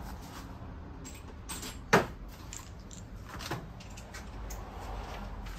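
Scattered metal clinks and knocks from hand tools and parts being handled, one sharp knock about two seconds in standing out, over a low steady room hum.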